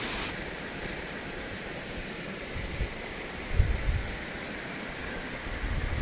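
Waterfall rushing as a steady hiss of falling water, with low gusts of wind buffeting the microphone about three and a half seconds in and again near the end.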